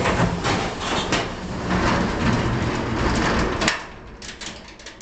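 Corrugated metal roll-up storage-unit door rattling loudly as it is rolled down, ending in a sharp bang a little over three and a half seconds in as it hits the floor.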